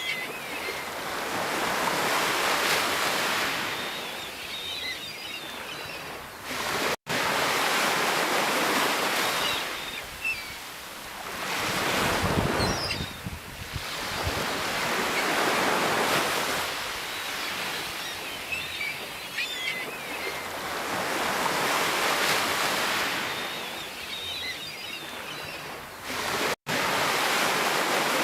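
Sea waves breaking and washing in, the surge swelling and falling back every three to five seconds with faint crackles in the spray. The sound cuts out for an instant twice.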